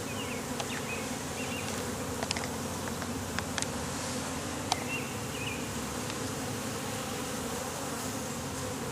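Honeybees buzzing in a steady, even drone around an opened hive, with a few faint clicks and short high chirps over it.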